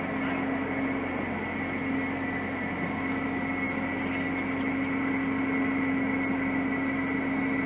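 Steady mechanical hum of an oil tanker's onboard machinery, heard on deck: a constant low drone with a fainter high whine above it.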